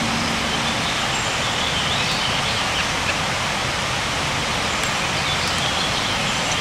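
Steady outdoor background hiss, even in level throughout, with a few faint high chirps.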